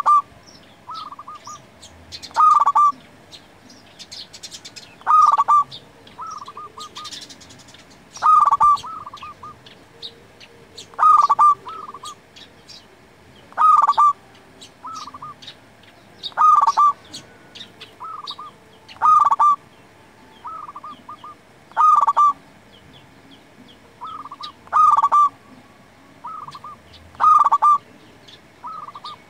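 Zebra dove (perkutut) singing its repeated cooing song: a loud phrase about every two and a half to three seconds, with short softer notes in between. Small birds chirp thinly in the background.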